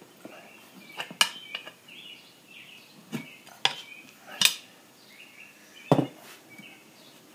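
Screwdriver and steel lawn mower rim clinking and knocking as a soaped tire bead is pried over the rim: several sharp metallic strikes, with short squeaks between them.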